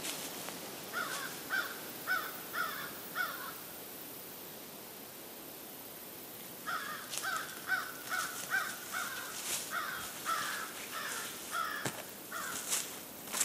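A bird calling in two quick runs of short, repeated calls, a few seconds apart. Near the end there is a light rustle of brush underfoot.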